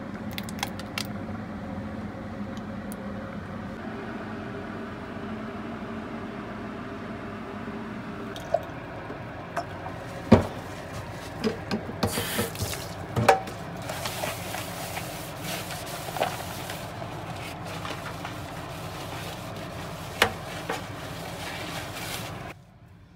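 Dishes being washed by hand in a stainless steel sink: a soapy sponge scrubbing and squishing, water running and splashing in stretches, and a few sharp clinks of plates and bowls against the sink.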